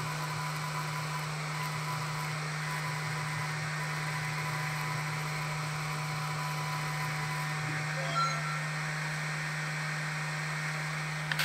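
Laser engraver made from an Ender-3 S1 3D printer with a Creality Falcon 10W laser module, running an engraving job: a steady fan hum with the stepper motors moving the bed and laser head. A faint high tone in the sound stops a little past halfway, as the engraving finishes.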